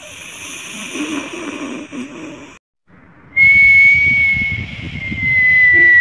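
Comic snoring: a hissing, rasping in-breath with a low snore, then after a short break a long steady whistle on the out-breath that slowly drifts lower in pitch.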